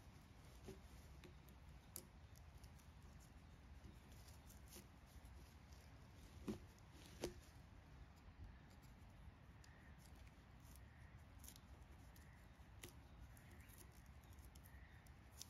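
Faint scraping and snicking of a hand blade stripping bark from a freshly felled log, with two sharper cracks about six and seven seconds in.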